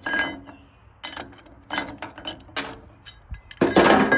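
Metal parts and tools clinking and clicking as a chainsaw muffler is taken off and swapped, a few separate clinks followed by a louder clattering rattle near the end.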